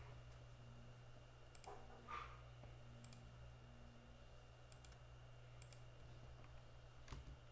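Near silence with a faint steady hum, broken by a handful of faint computer mouse clicks spread over several seconds.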